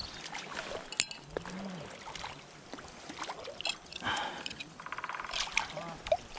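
Light splashing of water with scattered small clicks and clinks, a sharp click about a second in and a short, rapid ticking rattle about five seconds in.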